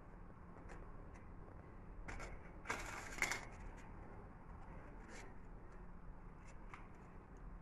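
Petit-beurre biscuits being handled and laid down by hand: light clicks and a brief crinkly rustle about three seconds in, over a faint low hum.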